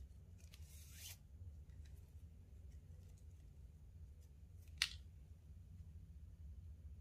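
Thin micro cord drawn through the weave of a paracord bracelet: a soft rustle about a second in, then one short, sharp zip about two-thirds of the way through as a stitch is pulled tight.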